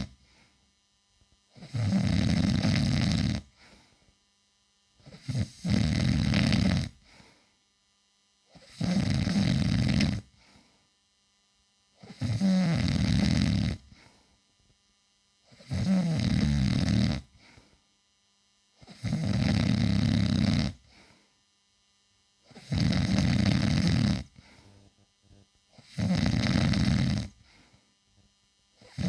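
A man snoring loudly, one long, heavy snore on each in-breath, about every three and a half seconds, with near silence between them.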